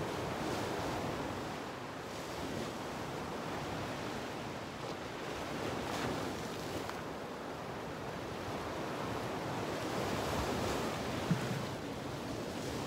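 Ocean surf washing and breaking over a rocky shoreline: a steady, surging rush of waves.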